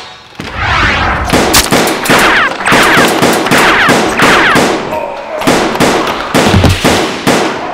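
Loud rapid-fire gunshot sound effects, shot after shot, some with a falling whine.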